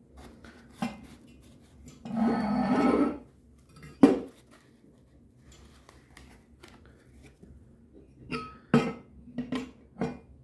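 Metal thermal stove fan being handled: a rattling scrape about two seconds in, a sharp knock around four seconds, then a run of light metallic clinks and knocks near the end.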